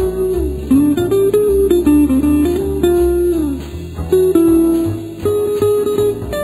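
Background instrumental music: a plucked melody whose notes often bend down in pitch, over a bass line.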